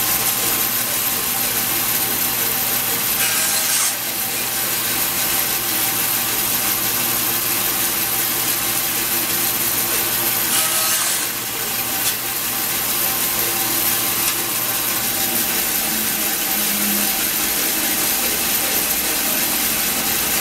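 Bandsaw with a coarse blade running and crosscutting small walnut strips held against a wooden backer, with two cuts heard about three and ten seconds in. Its motor hum stops about fifteen seconds in as the saw is switched off, and a steady rush of other shop machine noise carries on.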